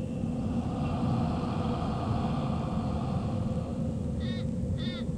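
A steady low rumble with a constant hum under it, and two short chirps near the end.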